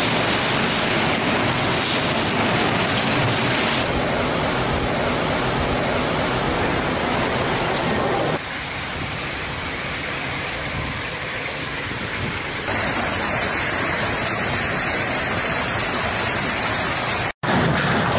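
Heavy rain and wind of a severe storm, a dense steady rush. It changes character abruptly three times as the footage cuts between clips, with a brief dropout near the end.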